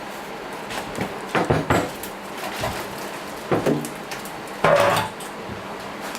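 Several short metallic clanks and knocks of tools and parts during washing-machine bearing-replacement work, the loudest about three-quarters of the way through, some ringing briefly.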